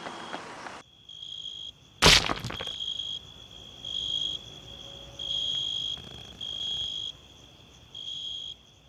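Cricket chirping: a steady high trill that swells into louder bursts about once a second. A single loud thump sounds about two seconds in, and a few footsteps on gravel are heard in the first second.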